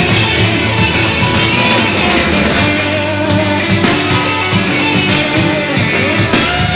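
Hard-rock power trio playing live, with electric guitar, bass guitar and drums driving a loud, steady passage.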